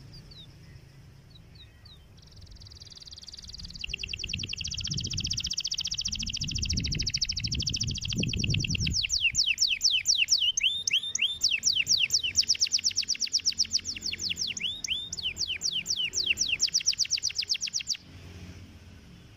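Domestic canary singing a long, rolling song: a few short notes, then a fast high trill that builds into rapid repeated sweeping notes and breaks off suddenly near the end. A low rumble sounds under the first half.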